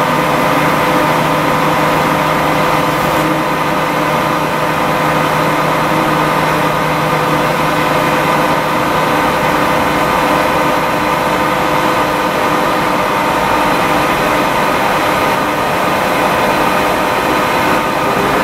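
Proturn 1745P CNC centre lathe running steadily: a constant machine hum with several fixed whining tones, unchanging throughout.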